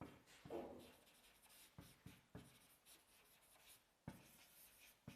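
Faint writing sounds: a series of short scratching strokes and light taps, with no steady rhythm.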